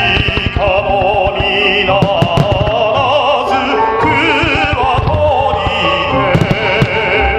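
A song sung with vibrato over an instrumental backing, with firework bursts thudding underneath it, most thickly in the first few seconds and again near the end.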